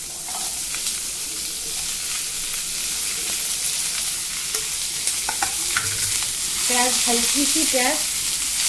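Chopped onions frying in hot oil in a kadai: a steady sizzle while they are stirred, just after being added to the pan. A voice is heard briefly near the end.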